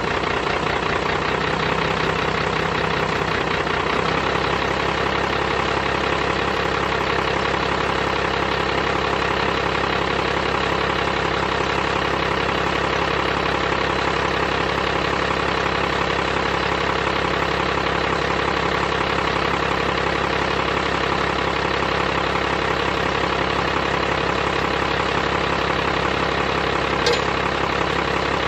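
12-valve Cummins 5.9 L straight-six diesel idling steadily, with one brief click near the end.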